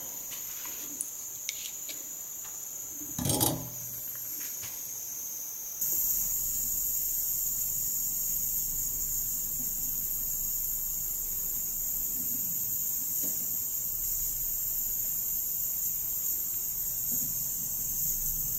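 Steady high-pitched electrical whine and hiss, growing louder about six seconds in. A few light clicks and a short knock of handling come about three seconds in.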